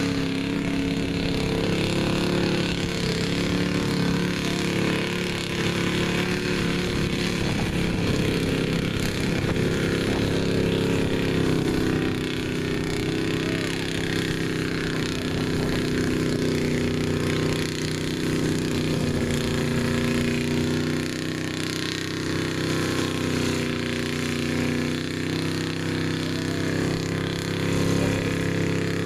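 Street-stock pickup truck's engine running steadily under load as the truck crawls through a mud bog pit, its pitch wavering slightly.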